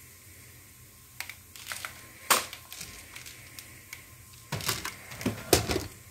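Clicks and knocks of plastic airsoft guns being handled. A few scattered knocks come first, the loudest a little over two seconds in, then a quick cluster of knocks near the end.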